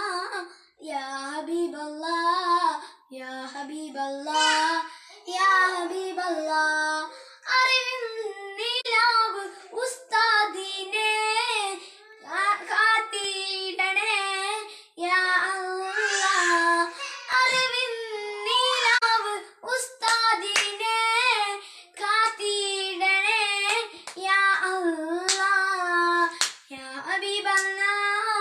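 A boy singing a devotional song in praise of an Ustad, unaccompanied, in phrases with short breaths between them. A few short sharp clicks fall between the phrases.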